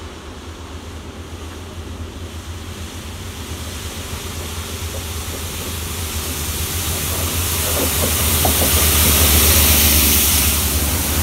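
Network Rail MPV rail head treatment train approaching and passing close by, its diesel engine running under a rising hiss from its water-jet cannon blasting leaf mulch off the railhead. The sound builds steadily and is loudest about nine to ten seconds in as the train passes.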